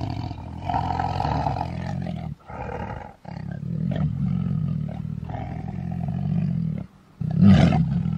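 Tiger roaring, four long roars with short breaks between them; the last, starting about seven seconds in, is the loudest.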